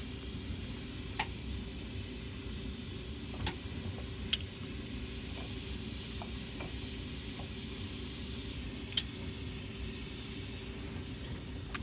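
Steady hiss of a glassblowing torch flame over the hum of a glass lathe, with a few light, sharp clicks scattered through it.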